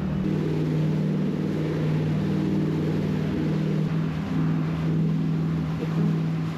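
Motorboat's outboard engine running steadily, its pitch holding nearly level.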